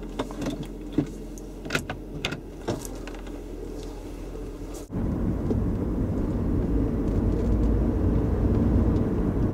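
Inside a car: a steady low hum with a few sharp clicks in the first half, then, from about five seconds in, a louder rumble of the car under way.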